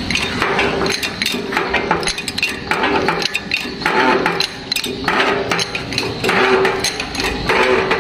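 Steel being struck over and over, about once a second, each clank followed by a short metallic ring.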